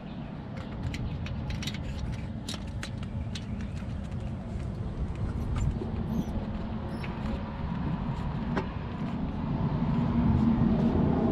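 Scattered light metallic clicks and taps of hand tools working in the engine bay during a glow plug install, mostly in the first few seconds, over a steady low rumble that grows louder near the end.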